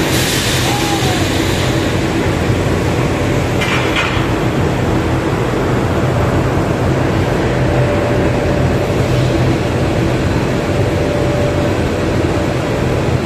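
Hot rolling mill running as a red-hot steel bar passes through the roll stands: a loud, steady machine din with a low hum from the stands and their drives, and a brief clatter about four seconds in.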